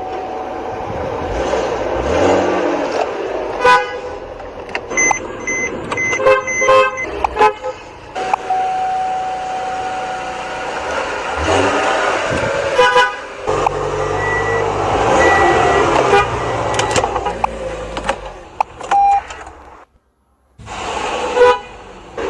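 Car horns from a series of different vehicles, one after another: runs of short repeated toots and longer held honks, with a brief silence near the end.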